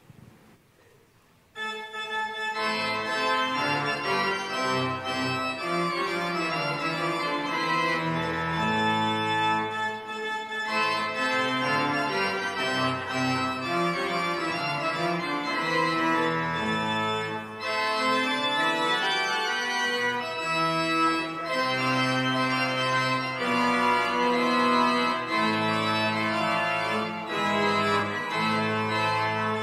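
Organ begins playing about a second and a half in and continues in full sustained chords: the postlude that follows the benediction.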